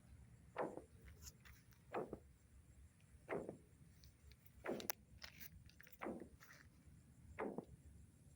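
A faint, short sound that drops quickly in pitch, repeating six times at an even pace of about one every 1.4 seconds, coming from under the ground.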